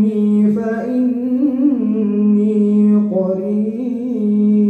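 A man's voice reciting the Qur'an in melodic tilawah style, drawing out long held notes with wavering, ornamented turns between them.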